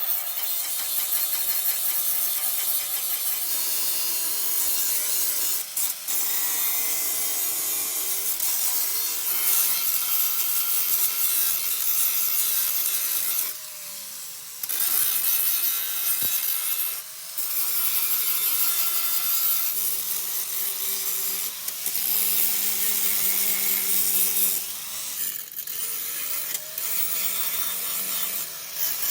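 Handheld power tool grinding or sanding on car bodywork: a dense abrasive hiss over a motor tone that sags under load. It stops briefly about three times and spins back up each time.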